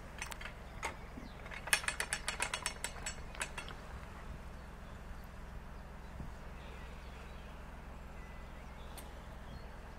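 Canal lock paddle gear's ratchet and pawl clicking rapidly, about a dozen clicks in under two seconds beginning a couple of seconds in, as the paddle is worked. A steady low rumble runs underneath.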